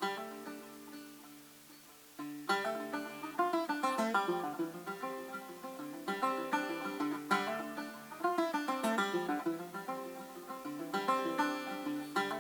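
Background music of fast plucked strings in a bluegrass style, a banjo-like picking that starts quietly and gets louder and busier about two seconds in.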